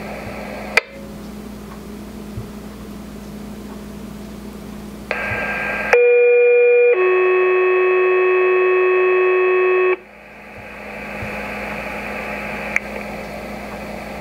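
Two-tone sequential pager alert coming over a RadioShack scanner's speaker through radio hiss. About six seconds in, a short, higher steady tone of about one second is followed at once by a lower steady tone held for about three seconds, which then cuts off. This is a dispatcher's weekly test page, setting off a fire department's pagers.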